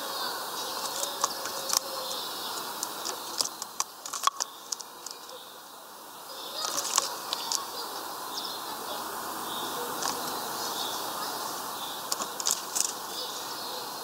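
Great tit bathing in a shallow plastic bird bath: scattered bursts of splashing and wing-flicking in the water, the loudest a few seconds in, around the middle and near the end. Short high bird calls repeat in the background.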